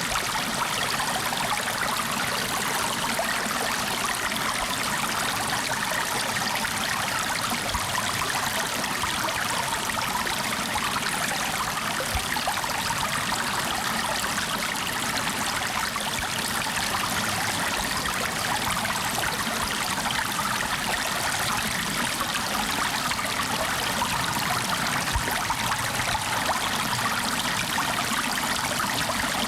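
Flowing water running steadily, an even stream-like rush and trickle with no breaks.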